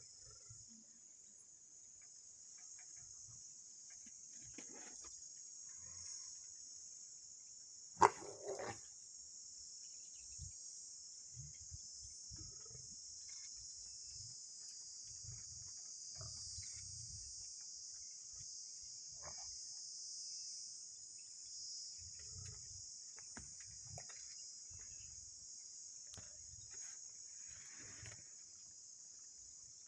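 Faint, steady, high-pitched chorus of insects such as crickets. About eight seconds in there is one sharp click followed by a short, lower, rougher burst, and faint low rumbles come and go.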